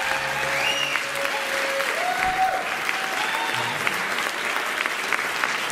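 Audience applauding, a dense steady patter of clapping.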